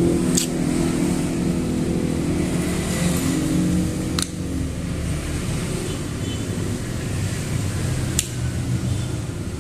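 Three sharp plastic clicks about four seconds apart as the back cover of a Vivo Y55s phone is pried loose along its side, over a steady engine-like hum.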